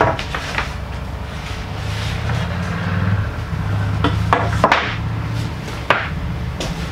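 Wooden floorboards knocking and clattering as they are lifted and set down, with several sharp wooden knocks, the loudest a cluster about four to five seconds in. A low steady hum runs underneath.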